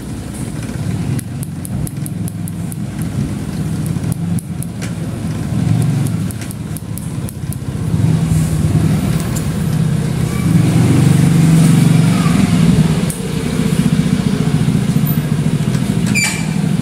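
A motor engine running steadily close by, a low rumble that grows louder from about eight seconds in.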